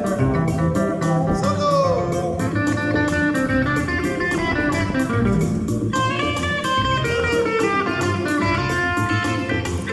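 Music led by a plucked guitar over a steady beat, with sliding notes a second or two in.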